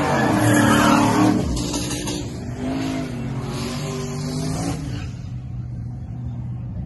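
A modified Chevrolet Silverado pickup's engine at full throttle launching off the drag strip's starting line. The revs rise, drop at a gear shift about a second and a half in, then rise again in the next gear, and the engine fades as the truck pulls away down the track.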